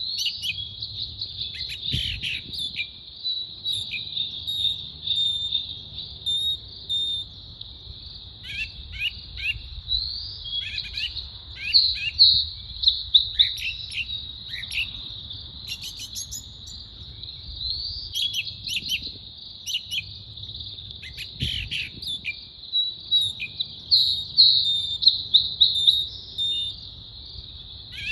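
Songbirds chirping and calling in quick runs of short falling notes over a steady high-pitched insect drone. The chirping grows loudest in bursts about halfway through and again near the end.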